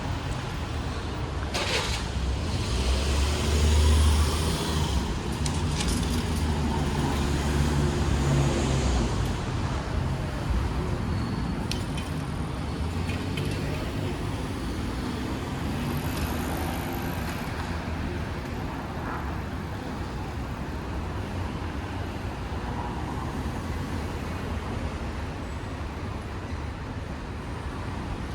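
Road traffic passing over an open level crossing: one vehicle's low rumble swells to its loudest about four seconds in and fades, with a few sharp knocks, then a steadier traffic noise. No crossing bell is sounding.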